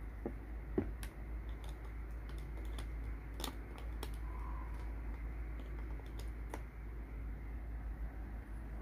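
Small plastic clicks and taps: USB plugs being pulled out of and pushed into a USB tester and a power bank. About a dozen irregular clicks, the loudest in the first second, then none near the end.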